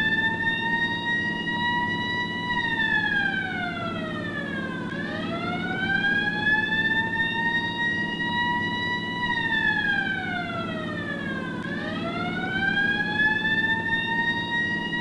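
1950s ambulance siren wailing in slow cycles: each time the pitch climbs for about four seconds, levels off, then slides down for about two and a half seconds, repeating about every six to seven seconds. A steady low hum runs underneath.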